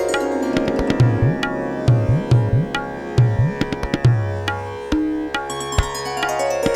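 Background music of Indian style: tabla strokes with low bending bass beats under plucked melodic runs.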